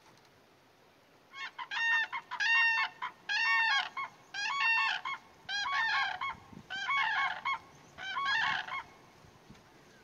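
Common crane calling: a series of about seven loud trumpeting calls, one roughly every second, starting about a second and a half in and stopping shortly before the end. The later calls are rougher and more crowded.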